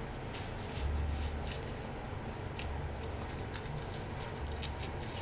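Eating sounds from mouth and hands working seafood boil: a scattered run of short, sharp wet clicks and smacks while chewing.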